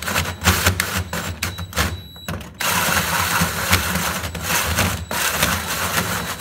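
Drill turning a 3-inch hole saw through the sheet-metal cabinet of an air handler, the teeth cutting through the oil-soaked steel. The cutting stops briefly about two seconds in, then starts again.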